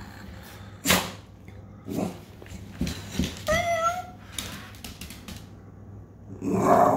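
Battery-powered animatronic toy cat giving one short, wavering recorded meow about three and a half seconds in. A few sharp knocks and clicks come before it, the loudest about a second in, and a louder rough sound near the end.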